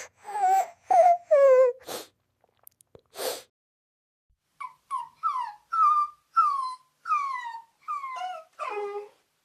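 Puppy whining: a few drawn-out whines falling in pitch and a breathy sniff, then, after a short pause, a run of short, high whimpers, each dropping in pitch, about one every half second.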